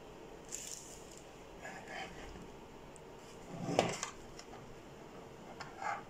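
A plastic smoke alarm being handled and turned over in the hands: a few soft scrapes and light knocks, the loudest a little under four seconds in.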